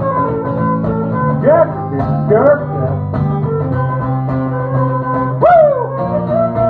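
Live instrumental passage of guitars and flute, with a few notes that bend up and fall back.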